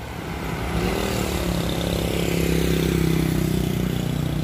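A motorcycle engine passing close by, its steady hum growing louder over the first few seconds, over general road traffic noise.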